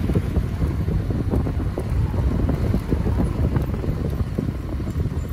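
Wind buffeting the microphone: a loud, uneven low rumble with scattered faint knocks.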